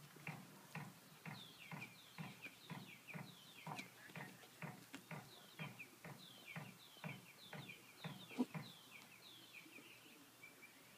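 West Highland white terrier digging in loose soil, its paws scratching in a steady rhythm of about three strokes a second. A bird chirps repeatedly in the background.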